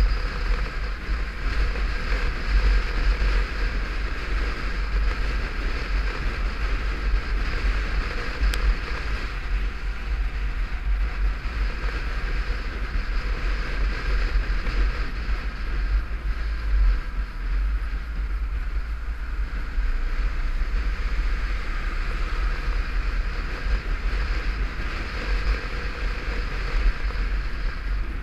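Wind rumbling on the microphone of a camera on a moving motorcycle, with a steady hum of engine and road underneath.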